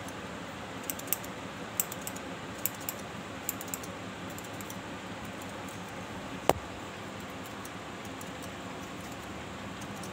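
Scissors snipping hair: a run of small quick clicks in the first four seconds and one sharper, louder snip about six and a half seconds in, over a steady background hum.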